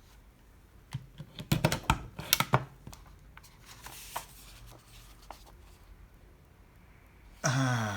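Plastic and metal clicks and knocks of a heavy-duty stapler being handled and its guide set, bunched about one and a half to two and a half seconds in, followed by faint rustling and ticking of paper and parts being moved.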